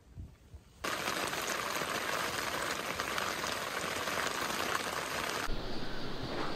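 Steady rain falling, an even hiss that starts abruptly about a second in and turns duller about five and a half seconds in.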